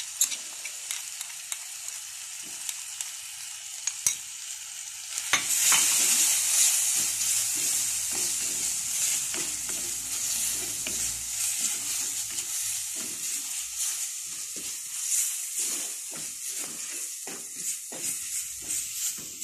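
Masala paste frying in hot oil in a clay pot, a wooden spoon scraping and stirring it through onions and green chillies. The sizzle jumps sharply louder about five seconds in as the paste hits the oil, then keeps going under the quick strokes of the spoon.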